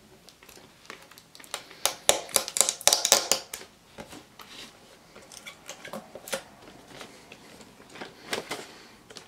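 Product packaging being handled and pulled open by hand: a run of sharp clicks, scrapes and rustles. They are densest for about a second and a half starting two seconds in, and come again briefly near the end.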